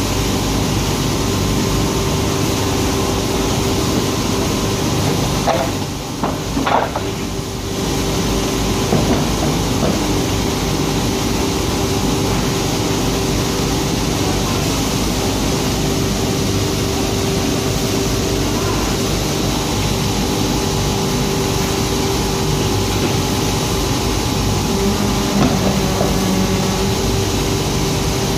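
Eight-head paper core polishing and grinding machine running: a steady mechanical hiss with a constant hum-like tone. The sound dips briefly about six seconds in.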